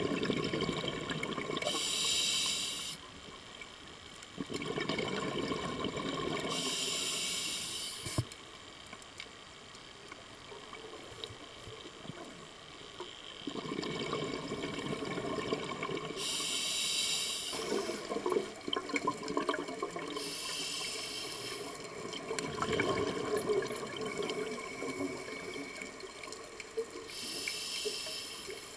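Scuba diver's breathing through a demand regulator, heard through the underwater camera housing: a short hiss of air on each breath, then bubbling of exhaled bubbles, repeating every five seconds or so.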